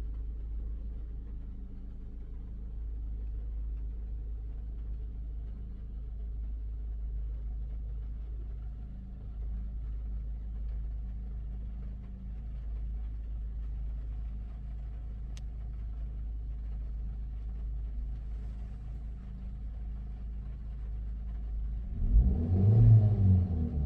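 Freshly overhauled Maruti Suzuki Brezza petrol engine running with a steady, quiet low hum and no knocking. Near the end a louder low rumble swells briefly.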